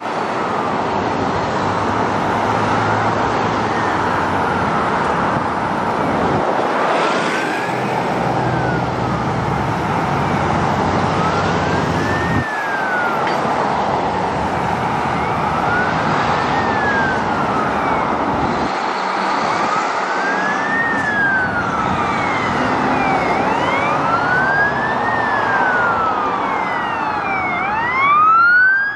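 Ambulance siren sounding a slow wail, rising and falling about every four seconds, faint at first and growing louder as it approaches, loudest near the end, over the hiss of passing road traffic.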